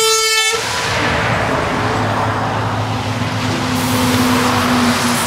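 A truck horn blast ends about half a second in. It is followed by a truck engine running steadily with a low hum and road noise.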